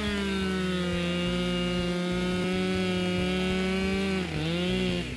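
Husqvarna two-stroke chainsaw cutting through a log at full throttle, running at a steady high pitch. About four seconds in the engine speed dips briefly under load, then picks up again before the sound stops.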